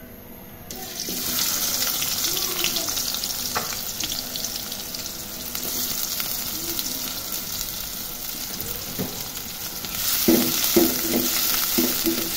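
Sliced onions sizzling in hot oil in an aluminium pot, the hiss starting a little under a second in as they hit the oil. Near the end a spatula stirs them with short scraping strokes and the sizzle gets louder.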